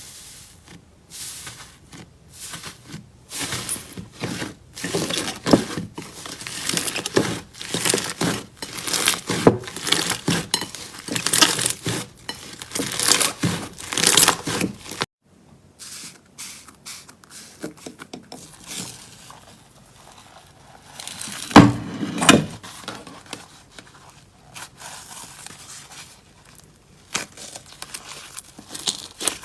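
Slime being handled, squeezed and poked by hand: a run of irregular sticky crackles, pops and squelches. About halfway through it cuts to a quieter stretch of scattered crackles, with a louder burst of squishing a little later.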